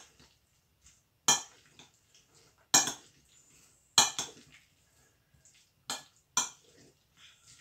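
Metal spoon clinking against the side of a glass bowl while stirring diced boiled potatoes with mayonnaise: five sharp clinks about one to one and a half seconds apart, with a few fainter taps between them.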